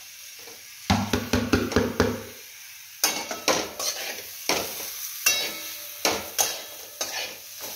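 Stuffed brinjals and leftover masala scraped off a plate with a spatula and dropped into a hot kadhai with a clatter. Then a metal spatula stirs them, knocking against the metal kadhai about twice a second over a faint sizzle of frying.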